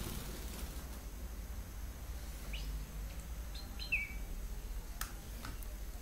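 Young European goldfinch giving a few short, high chirps in the middle, the last one gliding down in pitch, followed by a few sharp clicks near the end over a steady low hum.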